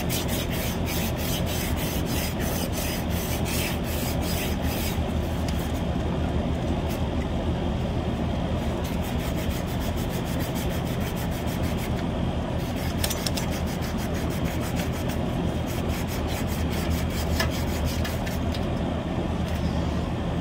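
Sand cloth rubbed back and forth on a copper suction line, cleaning the pipe bright before it is brazed. It comes in spells of quick rasping strokes, about four a second, with pauses between. A steady low hum from the running air-conditioning unit lies underneath.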